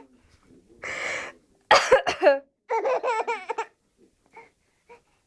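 A woman coughs, and a four-month-old baby answers with a run of squealing laughter on the edge of crying.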